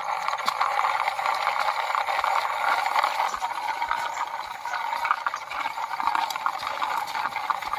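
Small green plastic toy tractor being pushed by hand along a rough stone wall, its plastic wheels and works giving a fast, continuous clicking rattle.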